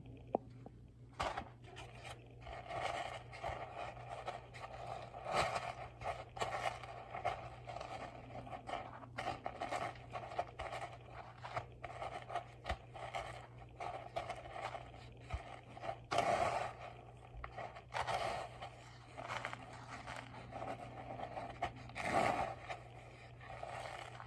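A hand pressing and rolling a dough-wrapped hot dog in dry panko breadcrumbs on a plate: repeated, irregular scraping and rustling of crumbs against the plate.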